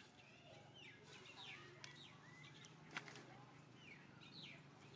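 Faint chirping of small birds: many short, falling chirps scattered throughout, over a low steady hum, with one sharp click about three seconds in.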